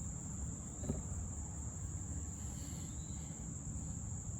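A steady high-pitched drone over a low background hum, with one faint click about a second in.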